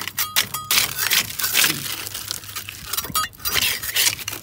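Loose, flaky paint being scraped and broken off the steel of a wood boiler, in rough, irregular scrapes and crackles.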